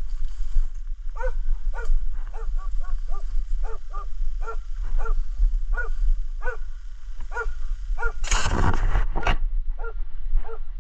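Istrian coarse-haired hound baying, short falling yelps about two a second: the hound giving tongue on a wild boar it has found. About eight seconds in, a loud burst of noise lasting about a second cuts across the barking.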